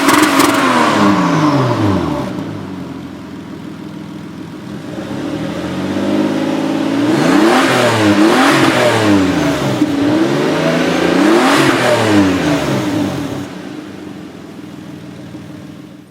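Toyota Supra's 2JZ-GTE twin-turbo straight-six being revved while parked: a rev dropping back to idle, a few seconds of steady idle, then several quick blips of the throttle in a row, each rising and falling, before it settles to idle again.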